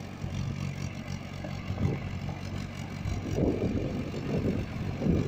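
Mahindra farm tractor's diesel engine running steadily as it works through a flooded paddy field. About three seconds in, an irregular, rougher noise surges in over the engine.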